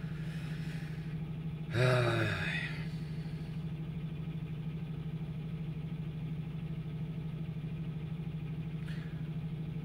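Steady low hum of a vehicle's engine running, heard inside the cab, with a fast even pulse. About two seconds in, a man makes a short voiced sound that falls in pitch.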